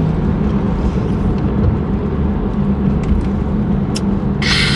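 Steady low hum of a car's engine and road noise heard inside the cabin, with a short breathy exhale near the end.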